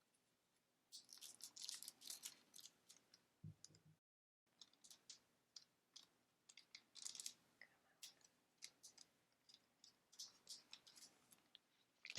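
Trading cards and their foil pack being handled: quiet, irregular bursts of small clicks and crinkly rustling as packs are cut or opened and cards are slid and shuffled, broken by a brief cut to silence about four seconds in.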